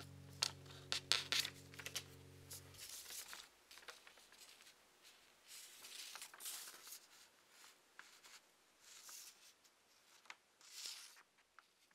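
A sheet of notebook paper being handled: soft rustles and crinkles with sharp little clicks and swishes, a burst near the start and another near the end. A low steady hum stops about three seconds in.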